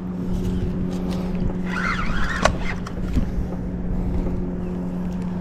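Penn Slammer III 6500HS spinning reel grinding with a steady hum as it is cranked against a hooked shark. The grinding comes from the body-cover screws working loose, which has worn the drive and pinion gears.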